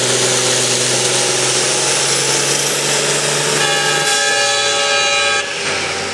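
Pulling tractor's engine running hard under load while dragging a weight sled, its note dropping about four seconds in. A steady horn blast sounds over it from about three and a half to five and a half seconds in.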